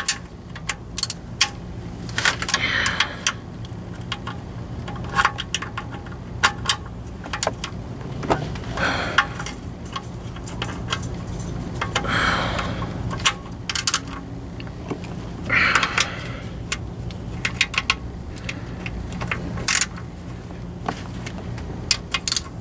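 Hand ratchet clicking in short bursts as it runs in the oil pan bolts on a Jeep 44RE automatic transmission, with rapid metallic clicks and brief rasping runs of the pawl. A low steady hum runs underneath.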